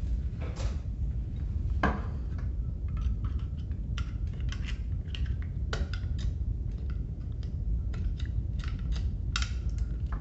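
Small screwdriver clicking and scraping against a metal battery terminal and the plastic housing of a laser level as the terminal is pushed into its slot: irregular sharp taps, over a steady low hum.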